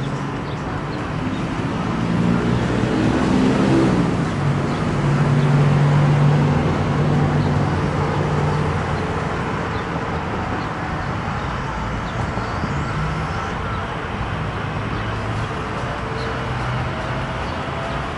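A road vehicle driving past, its engine tone dropping in pitch as it goes by about four seconds in, over steady traffic noise.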